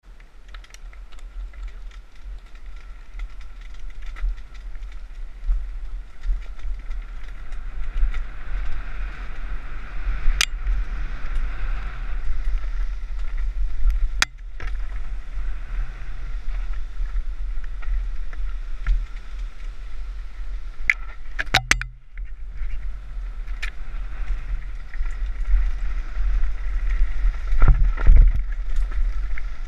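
Mountain bike descending a rough trail, heard from a camera carried on the bike or rider: a steady low wind rumble on the microphone with rattling and sharp knocks as the bike hits bumps, the hardest knocks about ten seconds in, around fourteen seconds, twice just after twenty seconds and near the end.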